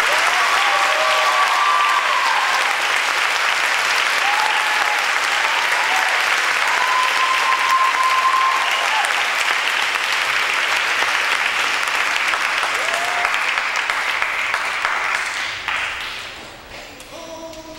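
Audience applauding, with a few voices shouting and whooping over the clapping; the applause fades out about fifteen seconds in.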